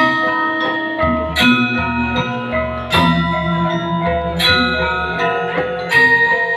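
Balinese gamelan playing: bronze metallophones and gongs ringing together, with strong struck accents about every second and a half over low pulsing tones.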